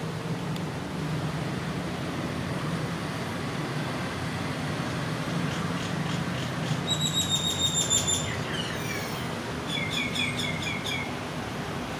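A bird calling over a steady background hum: a quick run of high chirps about seven seconds in, a few falling whistles, then another short run of chirps near the end.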